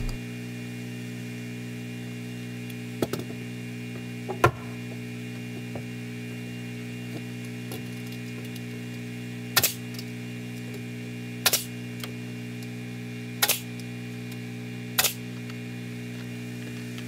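Pneumatic nail gun firing nails into timber beams: sharp single shots, two lighter ones early and four louder ones about two seconds apart in the second half, over a steady hum.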